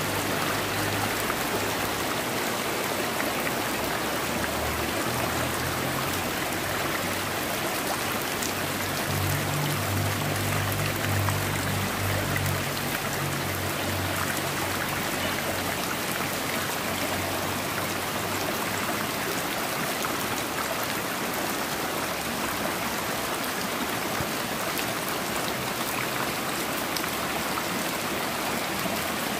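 Heavy rain falling into a small concrete drainage ditch, mixed with the ditch's running water: a steady, even hiss. A faint low hum comes and goes during the first half.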